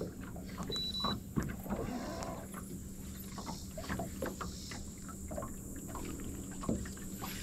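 Small waves slapping against the side of a fishing boat in irregular splashes and light knocks, over a steady low hum.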